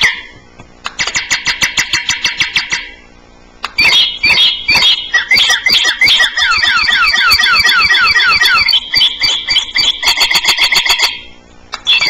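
Electronic bird-figure doorbell playing recorded birdsong: fast repeated chirps and downward-sliding whistles. A short burst comes about a second in, then a longer run of rapid chirping from about four seconds in that stops near the end.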